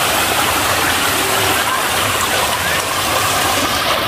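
Steady, loud rush of flowing water, an even hiss with no breaks.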